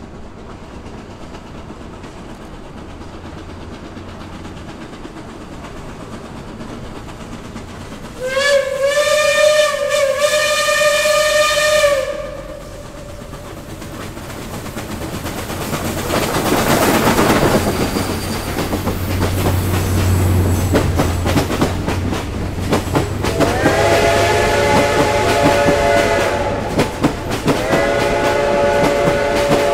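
Reading & Northern 2102, a T-1 class 4-8-4 steam locomotive, sounds one long whistle blast about a third of the way in. Its exhaust and running gear then pass in a loud rush with wheel clatter. Near the end come two more long, chord-like whistle blasts.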